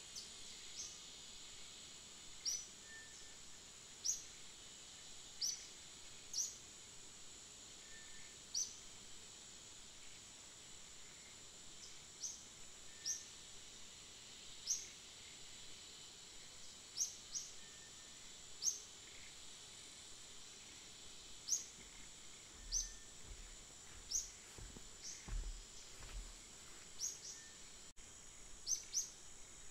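Outdoor ambience: a steady high insect drone, with a bird's short rising chirps repeated every second or two. A few faint low thumps come about three-quarters of the way through.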